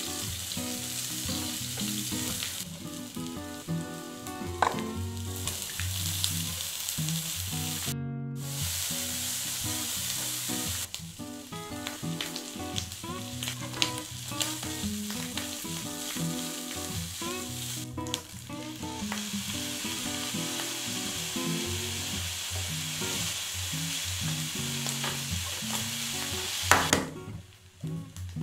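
Onion, bacon and rice sizzling in hot oil in a frying pan, stirred and scraped with a spatula, with scattered clicks of the spatula against the pan. The sizzle cuts out for a moment about eight seconds in and falls away near the end, with guitar background music underneath throughout.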